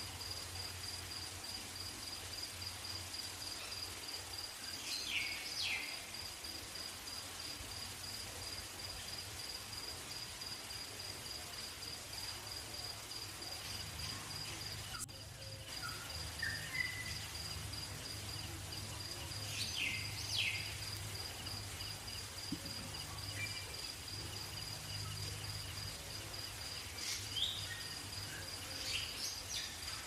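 Field insects trilling steadily at a high pitch, over a low steady hum, with short bird chirps breaking in a few times: a quarter of the way in, about two-thirds through, and several near the end.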